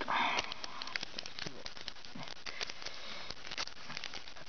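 Thin plastic candy wrapper crinkling and crackling as it is pulled open by hand, in many small irregular crackles, with a short louder burst at the very start.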